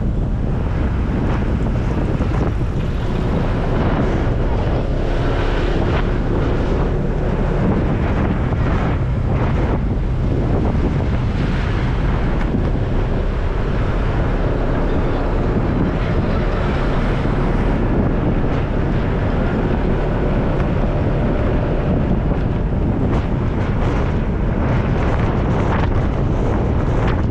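Steady wind buffeting the microphone of a camera on a moving Honda PCX 150 scooter, with the scooter's engine and road noise running underneath as a continuous low rumble.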